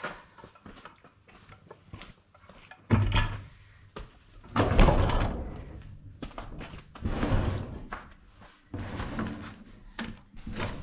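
A heavy log being shifted into place on a portable band sawmill's steel bed: a sudden thump about three seconds in, then several louder knocking and scraping bursts as the log is moved.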